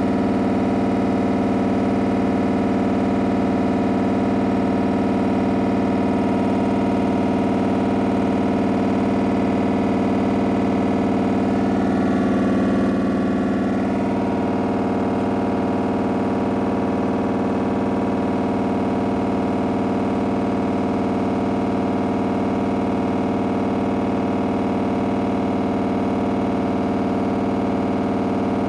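Samsung front-loading washing machine with its drum spinning, rattling very loud as a steady drone of several pitched tones that waver briefly about halfway through.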